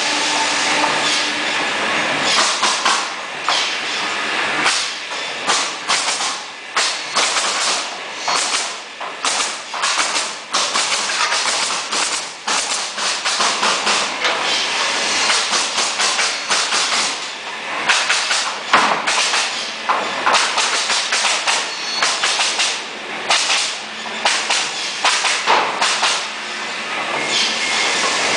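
Pneumatic nailers firing into wooden pallet boards in a rapid, irregular run of sharp shots, over a steady hiss of compressed air.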